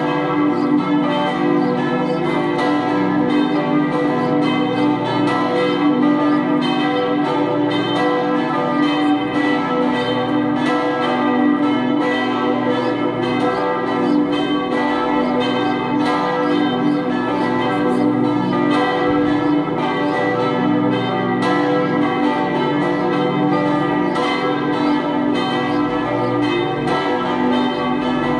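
Swinging church tower bells ringing in a continuous peal, strokes following close on one another over a sustained ringing hum.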